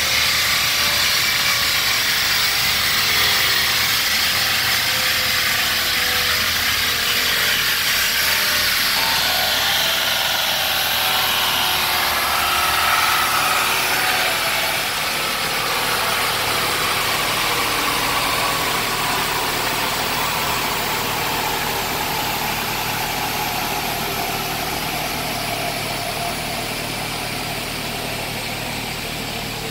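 Supercharged LT5 V8 of a C7 Corvette ZR1 running at low revs while the car coasts down on a chassis dynamometer after a power run, tyres and rollers spinning down. A steady loud running noise with a whine that slowly falls in pitch as the level gradually eases off.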